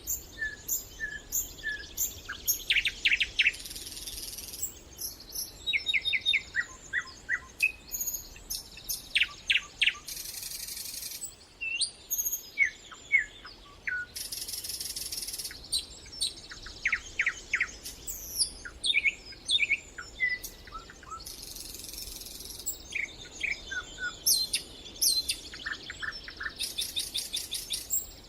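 Songbirds singing: a busy, continuous run of short chirps, whistled notes and rapid trills from more than one bird, with repeated second-long bursts of a very high buzz between the songs.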